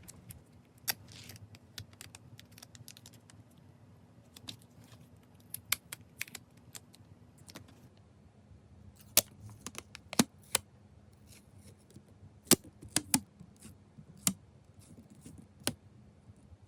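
Small objects being handled on a desk: irregular sharp clicks and taps, several louder ones in quick succession in the second half, with light rustling in between.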